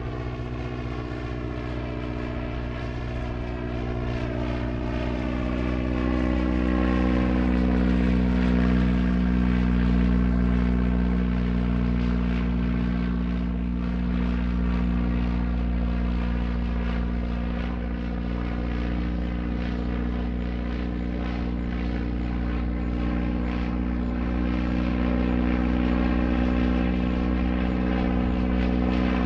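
Single-engine propeller airplane's engine running steadily, a dense stack of engine tones that grows louder over the first several seconds and then holds.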